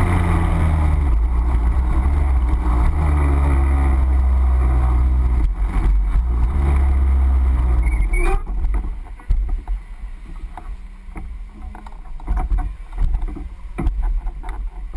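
Two-stroke kart engine running at low revs as the kart rolls in, its pitch slowly dropping, then it stops abruptly a little past halfway. After that, scattered knocks and clicks.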